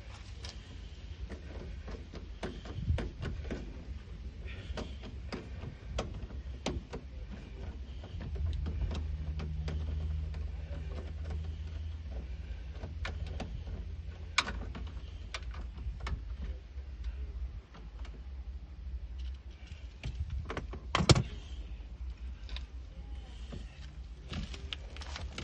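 Irregular clicks, clinks and knocks of hand tools and loose parts being worked at a car door while the side-mirror bolts are undone, with a sharper knock about a third of the way in and another near the end. A low drone joins for several seconds in the middle.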